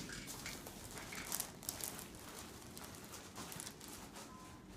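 Irregular rustling and shuffling of a person turning over and lying back on a chiropractic treatment table: clothing and table padding brushing and crinkling in short scattered bursts.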